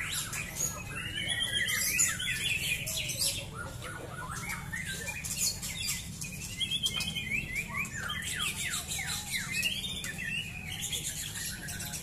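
Several caged white-rumped shamas (murai batu) singing together: a dense, unbroken stream of quick rising and falling whistled phrases mixed with sharp high chips.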